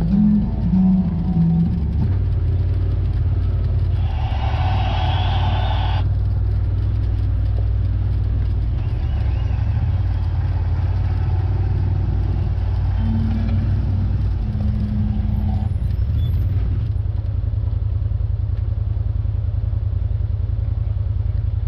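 CFMOTO ZForce side-by-side engine running steadily under way on a trail, a low drone. About four seconds in there is a brief hiss of about two seconds, and about seventeen seconds in the engine note turns slower and more pulsing.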